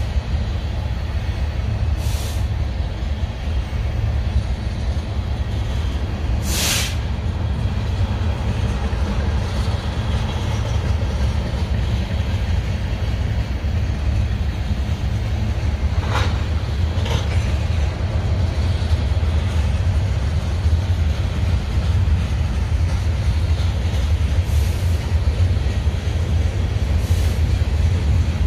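Freight train's tank cars and coil cars rolling past on the main track: a steady low rumble, broken by a few brief sharp noises from the cars, the clearest about six and a half seconds in.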